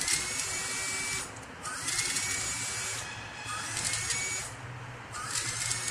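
Small 12-volt, 40-watt pump of a foot-press hand washer switching on in four short bursts, each opening with a rising whine as the motor spins up and followed by water hissing from the nozzle.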